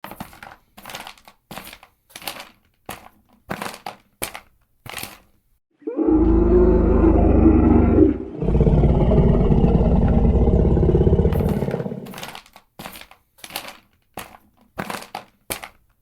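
Dinosaur sound effect: a run of short thuds, about one and a half a second, then two long low roars of about two and four seconds, then the thuds again.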